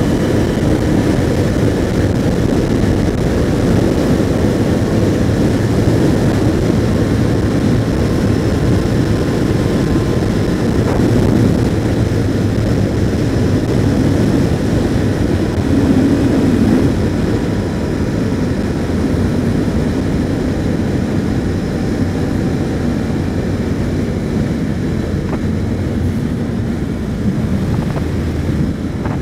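Royal Enfield Continental GT 650's parallel-twin engine running at a steady cruise, heard with steady wind rush as the motorcycle rides along.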